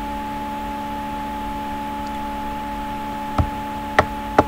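A steady hum made of several fixed tones, with three sharp clicks near the end that fit computer mouse clicks.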